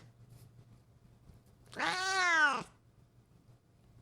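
Domestic cat giving a single meow about two seconds in, under a second long, its pitch rising then falling.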